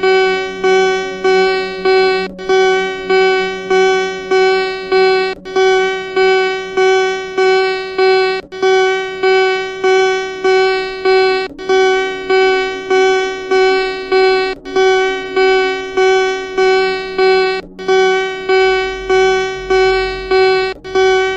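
Emergency alert system alarm tone: one buzzy electronic tone that pulses steadily, a little over once a second, with a short break in the pattern about every three seconds.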